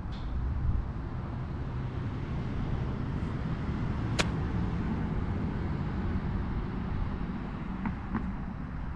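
A golf club strikes the ball once, a sharp crack about four seconds in. Under it runs a steady low rumble.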